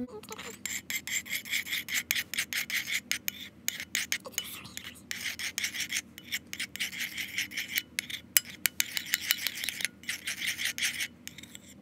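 Metal spoon stirring clear glue and hand soap in a ceramic bowl, scraping against the bowl in quick repeated strokes.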